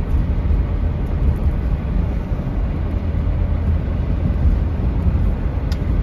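Steady low rumble of a car driving on a paved road, tyre and engine noise heard from inside the cabin with the windows up.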